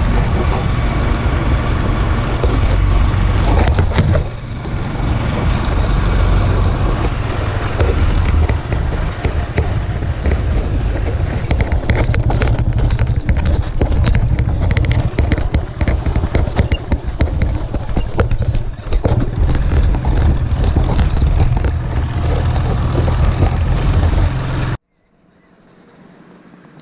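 A loud, steady low rumble with wind buffeting the microphone, like a vehicle on the move. It cuts off abruptly near the end.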